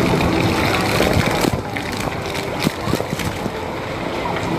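Wind buffeting the microphone over a steady outdoor din, with a few short knocks between about a second and a half and three seconds in.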